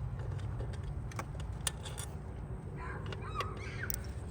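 Scattered light clicks of hand tools and metal parts over a steady low hum.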